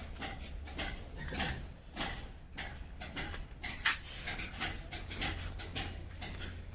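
Irregular scuffing footsteps and light knocks and rubs from handling the phone, over a steady low hum.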